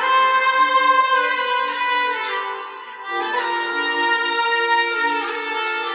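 Slow instrumental background music: a melody of long held, bowed-sounding notes that change pitch only a few times.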